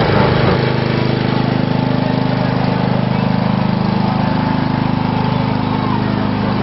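Small engine running steadily at an even speed, a constant low hum.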